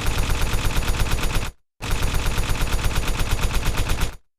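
A rapid, evenly spaced string of sharp pops, about a dozen a second, like machine-gun fire. It cuts off abruptly twice, about a second and a half in and again near the end.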